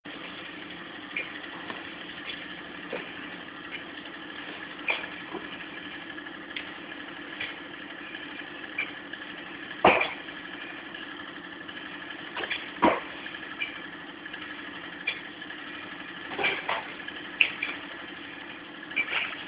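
Gloved punches and kicks landing in sparring: irregular sharp slaps and thuds, some in quick pairs, the loudest about halfway through and a few seconds later. A steady hum runs underneath.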